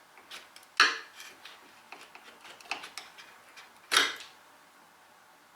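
Two sharp knocks about three seconds apart, with faint clicks and taps between them: hand tools being handled at a woodworking bench.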